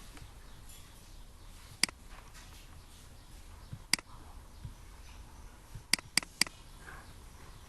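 Computer mouse button clicking: five sharp single clicks, two about two seconds apart, then three in quick succession near the end.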